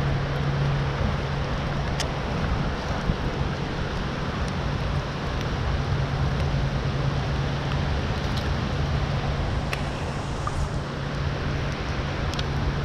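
Steady rain falling, an even hiss, with a steady low hum underneath and a few scattered sharp ticks.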